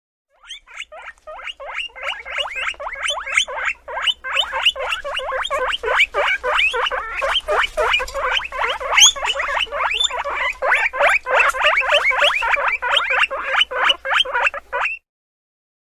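Guinea pig squeaking: a rapid run of short, high, rising squeaks, about four a second, that cuts off suddenly near the end.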